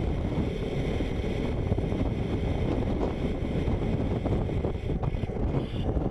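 Wind buffeting the microphone, over the whine of a 1:16-scale RC tank's electric drive motors and gearbox as it climbs a dirt slope.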